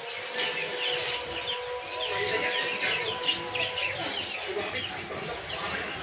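Many small caged birds chirping together: dense, overlapping, short, high chirps, each falling in pitch, several a second without a break.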